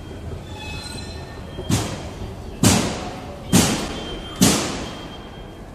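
Four loud thuds, evenly spaced about a second apart, each dying away with a short echo.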